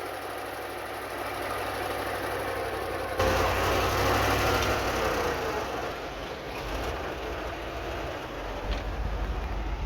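Heavy earthmoving machinery's diesel engine running steadily, with an abrupt change in the sound about three seconds in.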